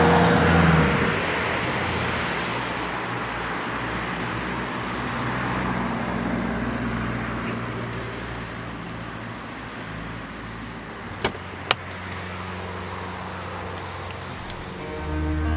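A car running, heard as a steady rushing road noise over a low hum, loudest at the start and slowly fading. Two sharp clicks come close together about two-thirds of the way through.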